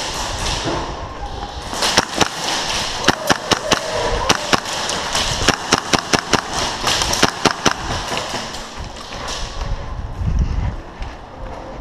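Airsoft guns firing: a string of sharp, irregular cracks and snaps from about two seconds in until about nine seconds in, over a constant rustling hiss.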